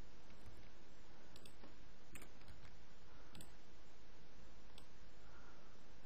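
A computer mouse clicking about four times, short sharp clicks spaced a second or so apart, over a steady low hiss.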